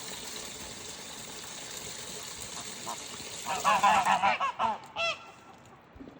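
Domestic geese honking in a quick run of loud calls about halfway through, over a steady hiss that stops near the end.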